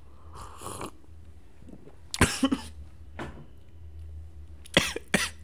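A man sipping from a cup, then coughing in short, sharp bursts: a loud cluster about two seconds in, a smaller one a second later, and another cluster near the end.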